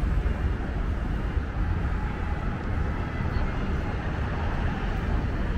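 Steady low rumble of outdoor street noise in a downtown area.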